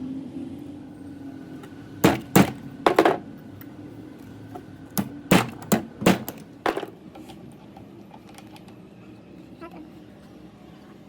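Two runs of sharp knocks, likely on the steering gearbox being worked on: about four, two to three seconds in, then about six more, five to seven seconds in, over a faint low hum.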